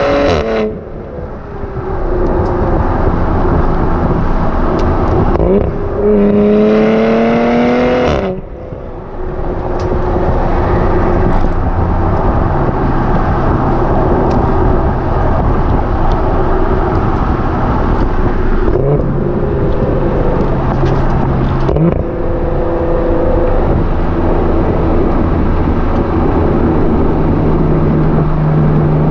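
B9 Audi RS4's 2.9-litre twin-turbo V6 heard at the tailpipe of its Milltek non-resonated sports exhaust while driving. Just after the start a pull ends as the revs drop suddenly. About six seconds in the revs climb again for two seconds and cut off. After that the car cruises with a steady low exhaust drone over road and wind noise.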